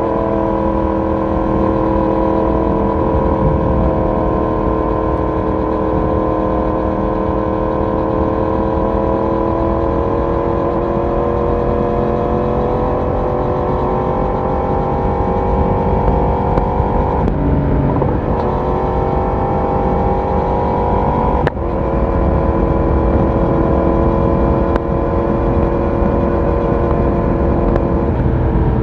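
Yamaha YZF-R1's crossplane inline-four exhaust while cruising, its note steady and drifting slowly in pitch over low wind rush. The note breaks briefly twice, about 17 and 21 seconds in, at gear changes.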